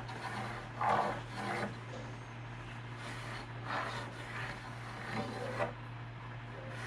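Pencil and a large square scraping on an oak board in a few short rubbing strokes as a line is marked across it, over a steady low hum.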